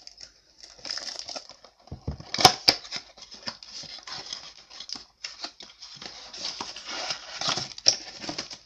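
A baseball-card blaster box being unwrapped and opened by hand: cellophane and cardboard crinkling, rustling and tearing. A thump and two sharp snaps come about two seconds in.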